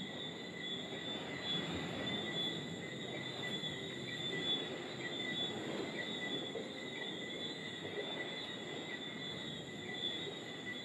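Night-time chorus of insects, a steady high-pitched chirring at a few fixed pitches, over a faint low background murmur.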